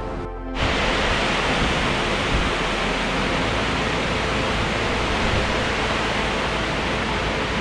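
Water pouring over a concrete weir, a steady, loud rushing that starts abruptly about half a second in.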